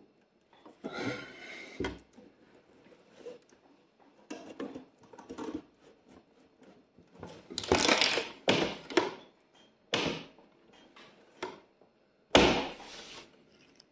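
Hands putting the flexible air hoses of a diesel air heater back into a wooden cabinet: crinkly rustling and scraping with scattered knocks, and one sharp, heavy wooden thump near the end.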